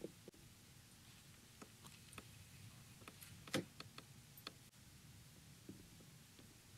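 Near silence with a few faint, scattered clicks and ticks, the loudest about three and a half seconds in.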